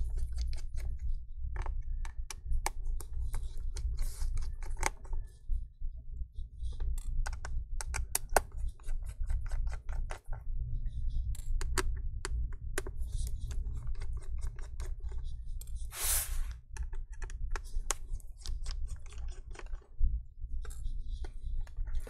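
Irregular small clicks and taps from a Torx T5 screwdriver and fingers working screws out of a MacBook Air's logic board, over a steady low hum, with a short rustle about two-thirds of the way through.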